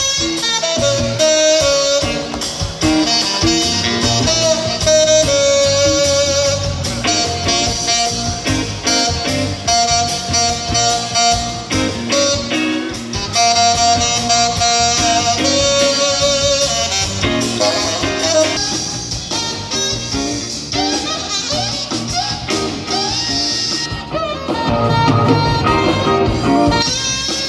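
Live electric jazz band: a tenor saxophone leads with long held notes over electric guitar, bass guitar and drum kit, the band getting fuller and louder near the end.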